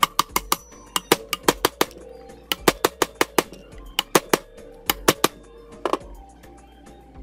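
A steel pipe used as a drift knocks a ball bearing down into its bore in a gearbox housing: a long series of sharp metallic taps in quick runs, with a ringing tone under them. The taps stop about six seconds in, as the bearing is seated.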